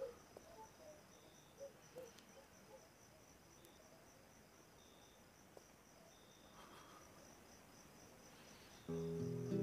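Crickets chirping steadily in a quiet night-time ambience, with a few faint soft knocks early on. Acoustic guitar music comes in near the end.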